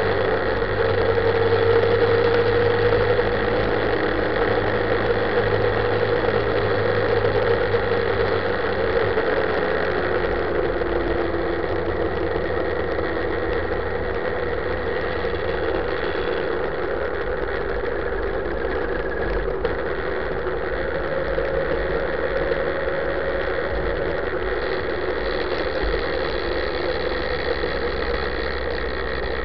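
Motorcycle engine running under way. Its note falls as the revs drop from about 5,000 to about 3,000 rpm in the first dozen seconds, then holds fairly steady, with a steady rush of noise under it.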